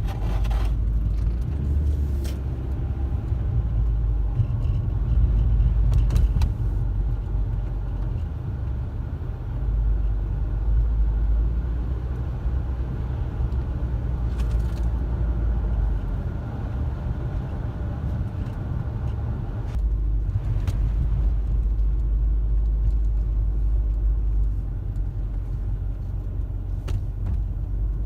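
Car driving, a steady low rumble of engine and road noise that swells and eases slowly, with a few faint clicks.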